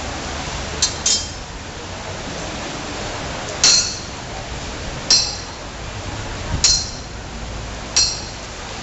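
Metal chain clinking in short, sharp, ringing strikes, about six of them at roughly one-and-a-half-second intervals.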